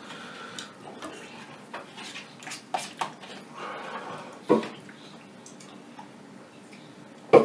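Eating sounds: a metal spoon clicking and scraping in a ceramic bowl of beans, with a few sharp clicks a couple of seconds in and a louder knock about four and a half seconds in.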